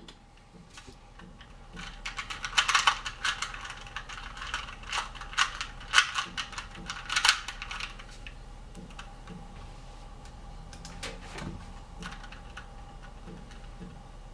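Rapid plastic clicking and clacking of a 2x2 Rubik's cube being turned fast, in dense bursts from about two seconds in until about eight seconds in. A few fainter clicks follow later.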